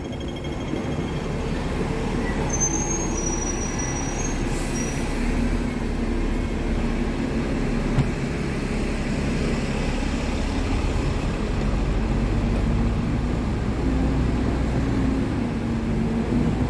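Hong Kong MTR train running, a steady rumble with a few brief high squeals about three seconds in.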